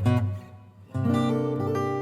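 Background music on acoustic guitar: strummed chords, one dying away about half a second in and a new chord struck about a second in that rings on.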